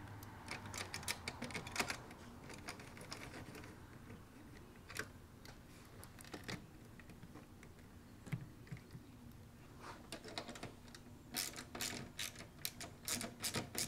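Socket ratchet clicking in quick runs as bolts are tightened down through a plastic scooter top-case base plate, with sparser clicks and pauses in the middle and a long fast run of clicks starting about eleven seconds in.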